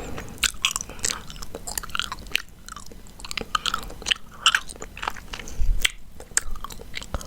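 Chewing gum close to the microphone: irregular mouth clicks and smacks, several a second, with short pauses.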